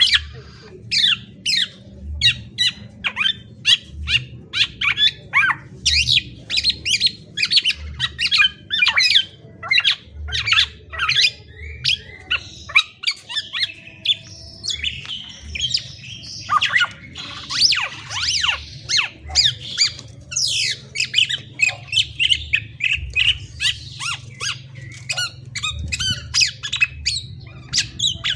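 Black-naped oriole (kepodang) calling: a rapid, continuous run of short, sharp notes that each sweep down in pitch, several a second, thinning briefly around the middle. A low hum runs underneath.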